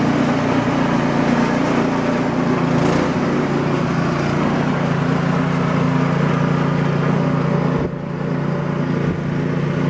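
An engine running steadily at idle, a continuous even hum that dips briefly about eight seconds in.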